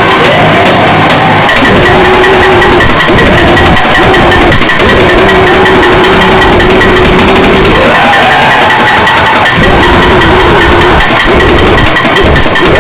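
Harsh noise music: a loud, distorted wall of noise with a fast crackling pulse and wavering tones that slide up and down. A steady high tone comes in about a second and a half in.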